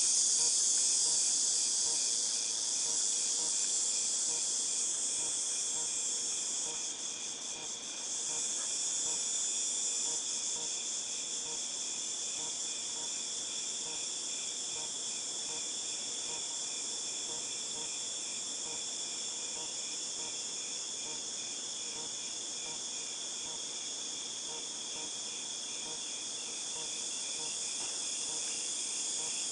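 Chorus of cicadas: a continuous, high-pitched, tinnitus-like buzzing drone with a steady pulsing trill underneath. The highest part of the drone dips briefly about seven seconds in.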